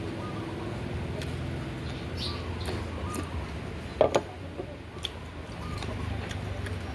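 A metal spoon and chopsticks working in a noodle bowl, with two sharp clinks against the bowl about four seconds in. Under it are a steady low hum and a few faint bird chirps.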